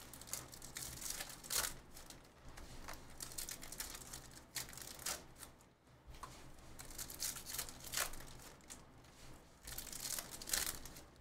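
Foil trading-card pack wrappers crinkling and tearing as packs are handled and ripped open, in irregular short bursts.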